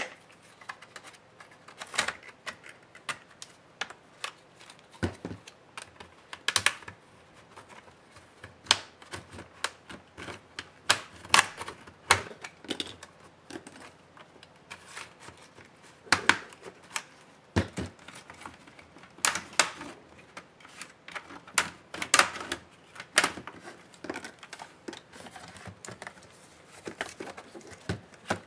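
Irregular string of sharp plastic clicks and snaps as an HP Stream 13 laptop's plastic display lid is pried apart and handled, its clips releasing and parts knocking together.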